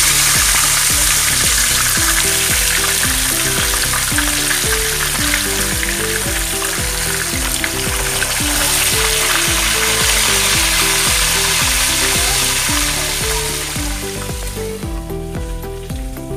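Whole tilapia sizzling and spattering as it fries in hot oil in a pan, over background music; the sizzle drops away near the end.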